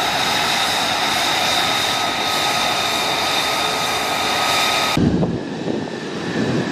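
F-35B's single F135 turbofan jet engine running at idle: a steady rushing hiss with a high whine over it. About five seconds in, the sound changes suddenly to a duller, lower jet rumble with the whine gone, as the jet taxis.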